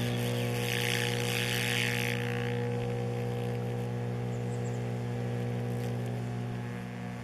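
Homemade electric arc furnace running: a steady electrical hum with its overtones, plus a crackling hiss from the arc that fades out about two and a half seconds in.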